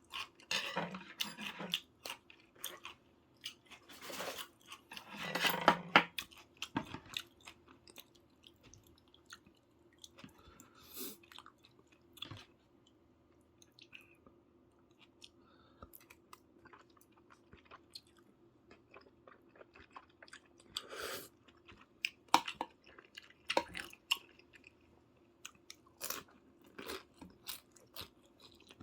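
A person eating soy-braised chicken (jjimdak), with wet chewing and mouth smacks in irregular clicks. There are louder bursts of eating noise about 1 s in, around 4 to 6 s, and again around 21 s.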